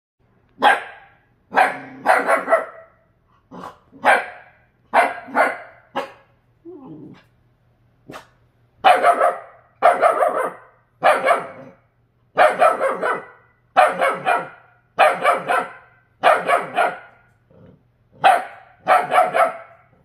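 Young Jindo dog barking repeatedly at its own reflection, sharp barks coming singly or in quick runs of two or three, with a brief low growl about seven seconds in.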